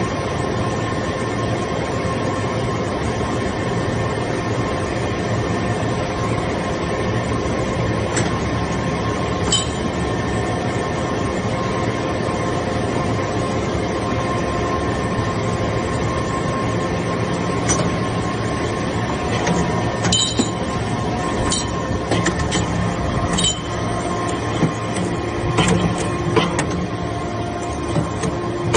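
Hydraulic metal-chip briquetting press running with a steady machine hum from its pump motor. Sharp metallic clinks and knocks come now and then, more often in the second half.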